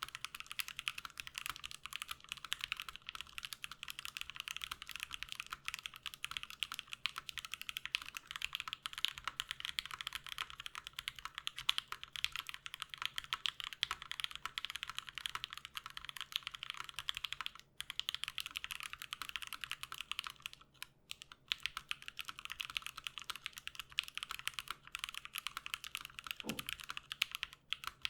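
Continuous fast typing on a mechanical keyboard with Everglide Aqua King V3 linear switches and PBT keycaps: a dense run of keystroke clacks, with a couple of brief pauses about two-thirds through.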